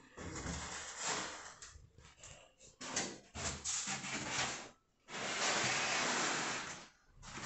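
Masking tape pulled off the roll: several short rasping pulls, then one long steady pull of about two seconds near the end.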